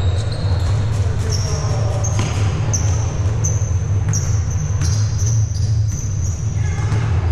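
Indoor basketball game: sneakers squeaking repeatedly on the court floor and a ball bouncing, over a steady low hum and background voices.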